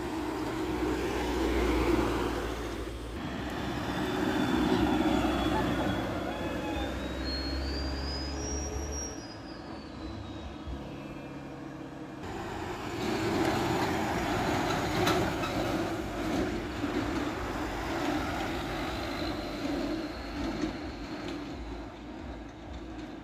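Diesel engines of buses and a truck passing on a winding road, with tyre noise, loudest as a bus goes by close at the start and again partway through. A faint high tone climbs in steps and falls away between about six and ten seconds in.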